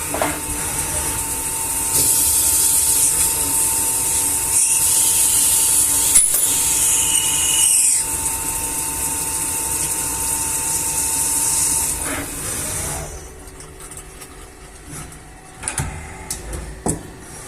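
CNC machine running: a steady motor whine under a strong high hiss, which dies down about thirteen seconds in, followed by a few light knocks.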